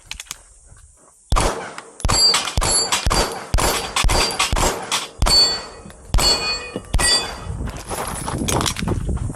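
Rapid string of a dozen or so pistol shots from a Staccato XC, starting about a second in, with steel target plates ringing and clanging as they are hit.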